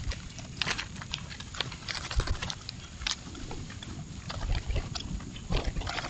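A flock of grackles feeding and squabbling at a small wooden ground feeder: irregular short sharp clicks and chips, several a second, with rustling in the grass.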